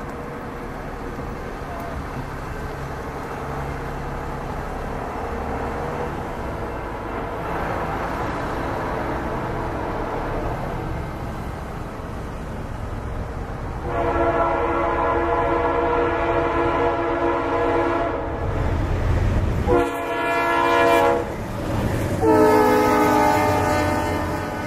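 Norfolk Southern freight train led by a GE C40-8W diesel approaching, its engines rumbling and growing louder. About 14 seconds in its air horn sounds several tones at once: a long blast, a short one, then another long blast as the locomotives pass.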